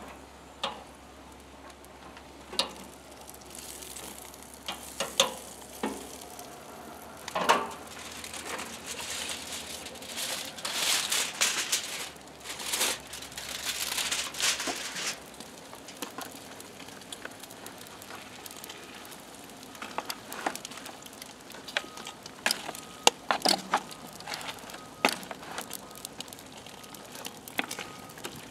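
Aluminium foil being crinkled and peeled off a disposable aluminium pan on a gas grill, loudest in the middle, then metal tongs clicking and scraping against the pan as sauced pulled pork is stirred. Under it the grill's flames hiss and the food sizzles.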